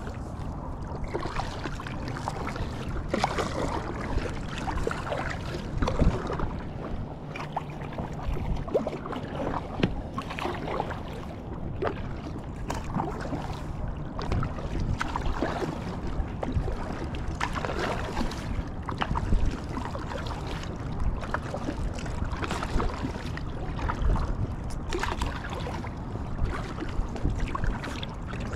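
Water and handling noise aboard an inflatable packraft: a steady rush with irregular knocks and rubbing sounds throughout.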